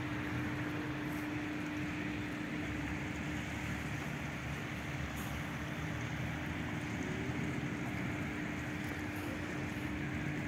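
Steady outdoor noise of a flooded street: one constant low hum, like a running engine or motor, over an even rush.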